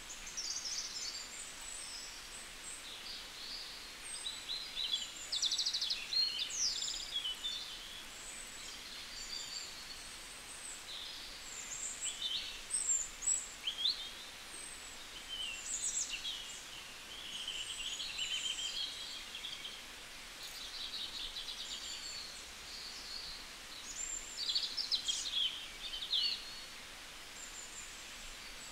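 Small birds chirping and twittering: many short calls, quick trills and rising and falling whistles, overlapping throughout, over a faint steady hiss.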